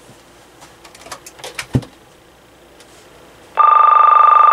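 Handset of a Sanyo CLT-9581 900 MHz cordless phone ringing by itself: a loud electronic warbling ring of two close tones starts about three and a half seconds in. A few soft clicks and a knock come before it.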